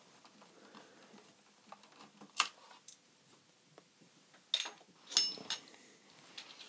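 A few sharp clicks and a brief metallic clink, one ringing for a moment, as a screwdriver works the screws of a small metal bracket inside an Amiga 600 and the parts are handled.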